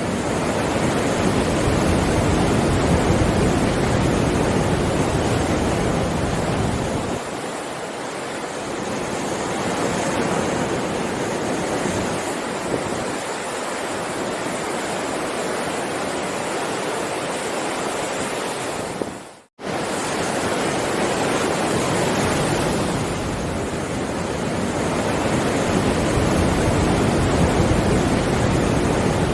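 Heavy ocean waves surging and washing in a continuous rush that swells and eases every several seconds. The sound cuts out for a split second about two-thirds of the way through.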